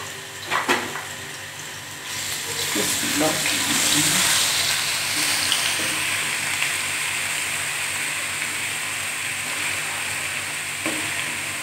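Garlic paste frying in hot oil in a nonstick kadhai, being stirred with a wooden spatula. A short knock comes just under a second in; the sizzle swells about two seconds in and then holds steady.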